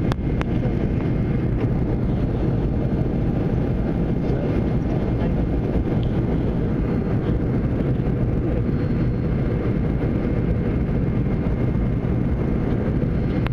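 Steady cabin noise of an airliner in flight: engines and rushing air heard from inside the cabin, mostly low and even, with a couple of faint steady tones above it. A single click just at the start.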